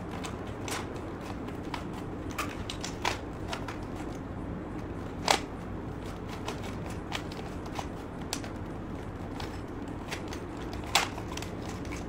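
A plastic 3x3 Rubik's cube being turned fast by hand: irregular clicks and clacks as its layers snap round, the loudest about five seconds in and again near the end.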